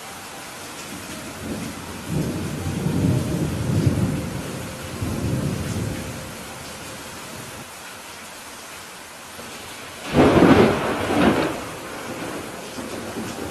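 Heavy rain falling steadily, with a low rolling rumble of thunder about two seconds in that fades out over a few seconds. About ten seconds in comes a louder, sharper thunderclap that rumbles on briefly.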